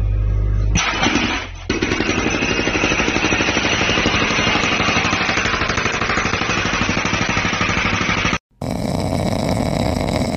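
Excavator engine running, then about a second in its hydraulic breaker starts hammering concrete with rapid, steady blows that cut off abruptly near the end.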